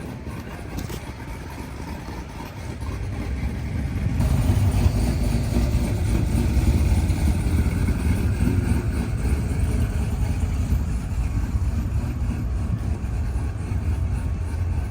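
A car engine running at idle, getting louder about four seconds in and then holding steady.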